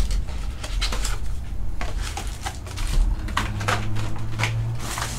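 Foil-wrapped trading card packs rustling and clicking as they are handled, pulled from a cardboard hobby box and set down in a pile.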